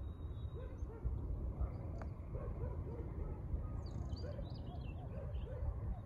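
Rural outdoor ambience: a low rumble of wind on the microphone, with a string of short distant animal calls throughout and a few high bird chirps about four seconds in.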